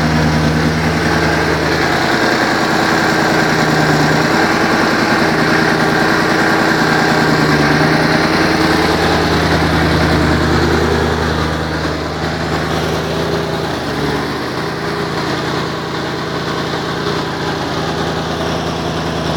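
Twin-turbo V8 engine idling steadily, a little quieter from about twelve seconds in. It is running very rich on a Megasquirt tune file taken from a non-turbo 4.2 litre V8.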